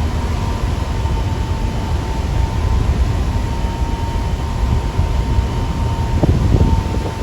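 Strong wind buffeting the microphone on a ferry's open deck in rough seas, a heavy low rumble with a thin steady whine running under it.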